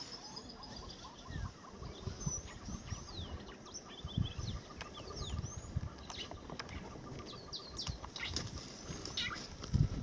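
Wild birds calling in the bush: short sweeping whistles and chirps, with a fast, evenly pulsing trill through the first half or so. Low rustling and scattered dull thumps run underneath.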